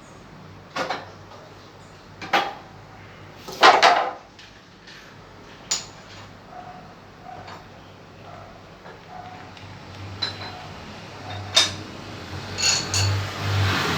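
Metal parts and tooling clanking and knocking as the press is released and the reconditioned tie rod joint is handled: a string of separate clanks, the loudest about four seconds in, over a steady low hum.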